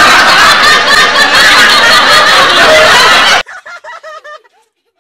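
Very loud, harsh laughter for about three and a half seconds, then a handful of short ha-ha pulses that stop a little after four seconds in.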